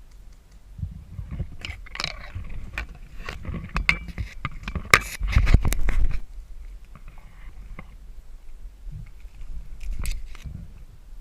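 Close scraping, knocking and rustling of a person crawling with a body-worn camera, with a louder cluster of knocks and scrapes about five seconds in.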